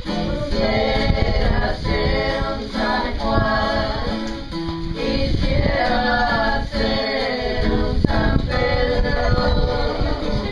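Several voices singing a song together, accompanied by a strummed acoustic guitar.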